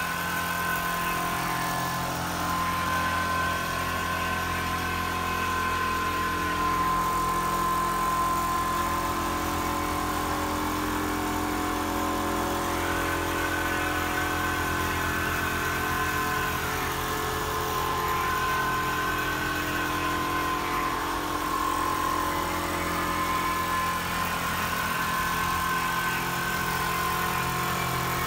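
Single-needle computerized quilting machine running and stitching: a steady machine hum with a higher whine that rises and falls every few seconds.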